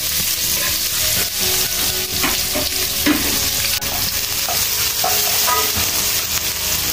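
Chopped onion, garlic and ginger sizzling steadily in hot oil in a stainless steel wok, stirred with a wooden spoon.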